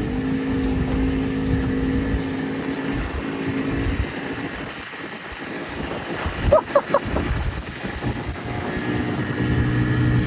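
Outboard motor running hard at full throttle, a steady engine tone over wind buffeting the microphone and the rush of the hull over choppy water. A brief higher-pitched sound cuts in about six and a half seconds in.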